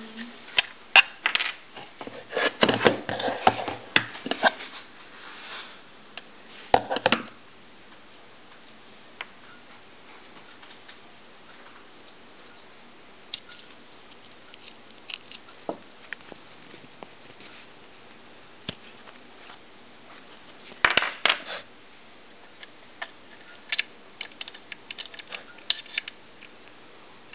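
Wooden panels and pieces of a painted wooden puzzle box being slid apart and set down on a wooden tabletop: clicks, knocks and light scraping in three bursts, the longest at the start, with quiet stretches between.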